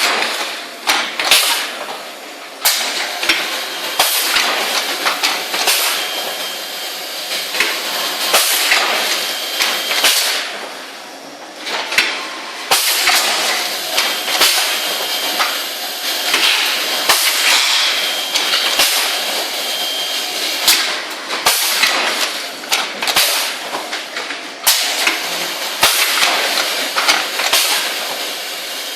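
Automatic cup filling and sealing machine running: a steady hiss with repeated sharp mechanical knocks and clacks, about one or two a second.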